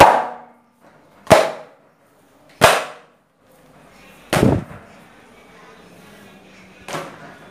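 Parotta dough being swung and slapped down onto an oiled countertop to stretch it thin: five sharp slaps a second or two apart, the fourth heavier and longer than the rest.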